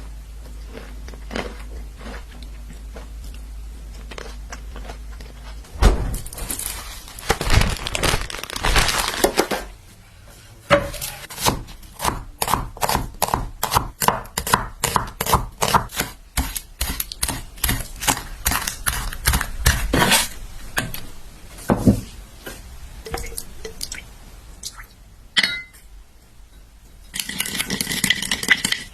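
Kitchen food-prep handling: dishes and utensils knocking, clinking and scraping in quick irregular strokes, with a few stretches of rustling noise. A low steady hum fills the first few seconds before the handling starts.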